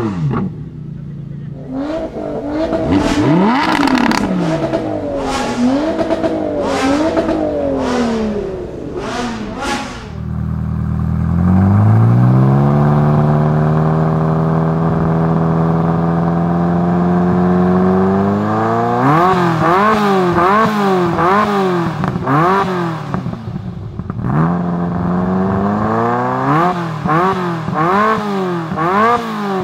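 Maserati MC12 Stradale's V12 revved repeatedly in rising and falling blips. About ten seconds in, a Ferrari F40's twin-turbo V8 takes over: it rises to a steady idle, then is revved in quick short blips, in two runs with a brief idle between.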